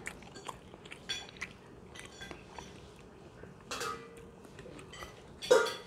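Hand-eating sounds at a table: fingers working rice on a plate, small mouth sounds and light clinks of dishes and cutlery. There is a louder clink of tableware about four seconds in and a sharper, louder one near the end.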